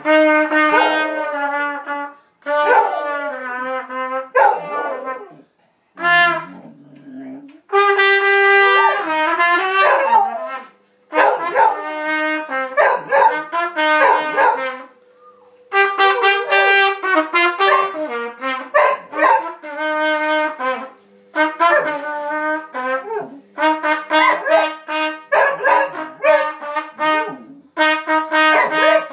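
A basset hound howling along to a trumpet, some notes held steady and others sliding up and down in pitch, in a string of phrases broken by short pauses.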